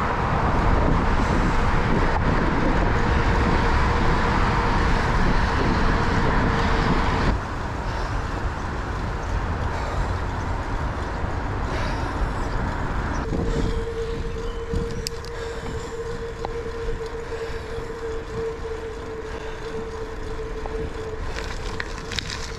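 Wind rumbling on the microphone of a handlebar-mounted camera, with bicycle tyres rolling on an asphalt trail. The rumble drops sharply about seven seconds in, and a steady hum comes in a little past halfway and holds to the end.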